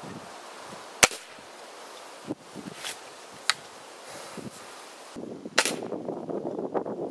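.22 Gamo Whisper Fusion Elite break-barrel air rifle firing one shot, a single sharp crack about a second in. Then come a clunk and clicks as the barrel is broken open to cock and load it. Another sharp crack comes near the end.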